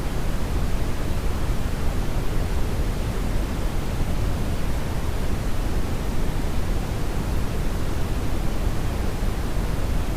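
Brownian (red) noise: a steady, even rush weighted toward the low end, with no change or events.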